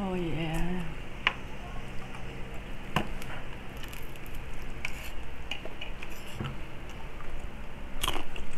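Hands tearing apart a crispy fried pork knuckle and a fork clicking on the plate, with a few sharp clicks. A short hummed "mmm" comes at the start, and a louder crunchy crackle near the end.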